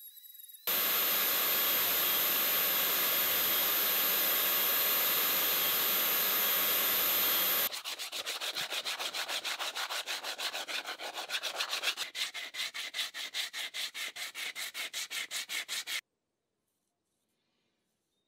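A small rotary tool with a sanding drum runs against a wooden hammer handle, a steady grinding hiss with a thin high whine. About seven seconds later it gives way to sandpaper rubbed by hand along the wooden handle in quick back-and-forth strokes, about five a second, which stop suddenly.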